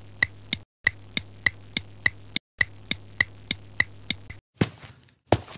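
Clock-ticking sound effect: a sharp, even tick about three times a second over a faint steady hum, with two brief drop-outs. Near the end the ticking gives way to a couple of louder thuds.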